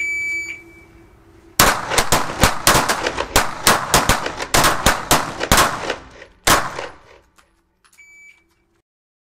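Range timer beeps once to start the stage. About a second and a half later comes a rapid string of pistol shots, more than a dozen reports over about five seconds, with a last shot about a second after the others. A second identical beep eight seconds after the first marks the end of the 8-second time limit.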